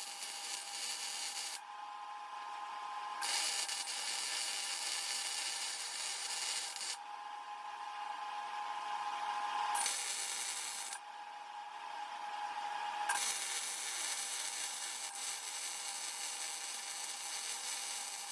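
Electric angle grinder running steadily, its wheel biting into the metal in four passes of one to five seconds each, with the motor's whine carrying on alone between them. It is trimming the corner off a part so that it sits flat.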